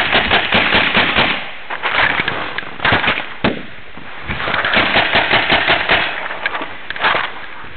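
Paintball markers firing rapid strings of shots, about six or seven a second: a dense volley that breaks off about a second and a half in, then further bursts near the middle and again near the end.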